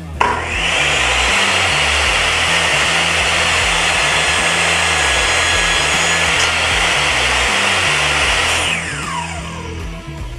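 DeWalt DWE7492 jobsite table saw motor switched on with a sharp start and running loud and steady for about eight seconds, then switched off and winding down in a falling whine. Background music plays underneath.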